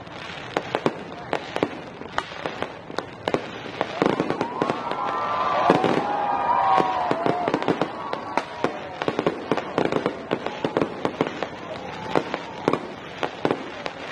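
Aerial fireworks going off in many sharp cracks and bangs in quick, irregular succession. For a few seconds in the middle, people's voices rise over them.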